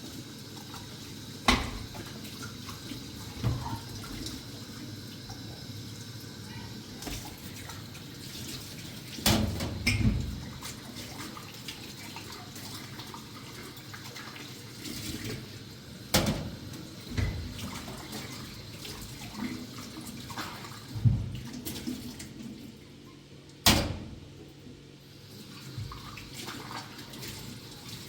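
Water running or splashing, with several sharp knocks and clatters now and then.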